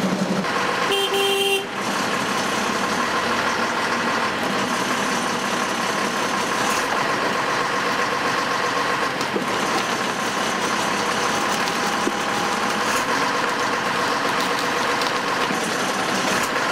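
Truck-mounted crane's diesel engine running steadily while the crane lifts a wrecked car, with a short horn toot about a second in.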